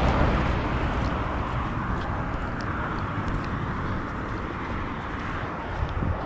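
Truck driving on the road: a steady low engine rumble with road noise, easing off slightly across the few seconds.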